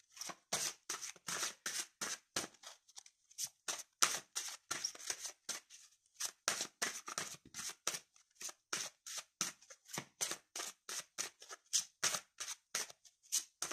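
A deck of oracle cards being shuffled by hand: a steady run of short swishes, about three a second.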